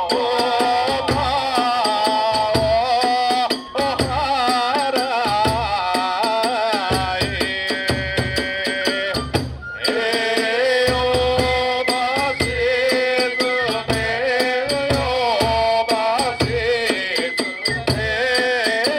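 Kagura hayashi ensemble playing: a bamboo flute melody winding up and down over a steady big drum beat of about one stroke a second, with small hand cymbals clashing throughout. The music drops out briefly twice, about a third of the way in and again at about the halfway point.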